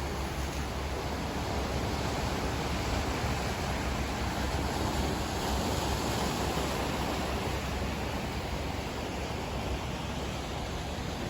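Steady sea surf washing against the shore, mixed with wind rumbling on the microphone.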